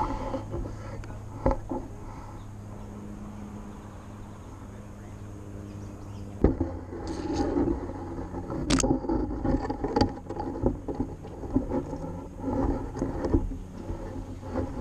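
Rustling, scratching and scattered sharp knocks of a GoPro camera brushing through tree branches and twigs, starting about six and a half seconds in, over a low steady hum.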